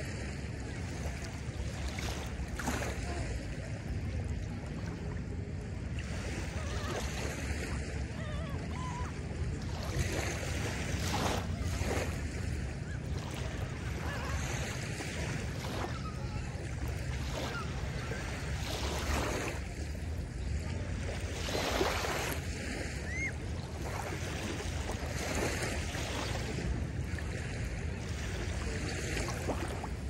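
Small lake waves lapping and washing onto a sandy shore, a new wash every few seconds, over a steady low rumble of wind on the microphone.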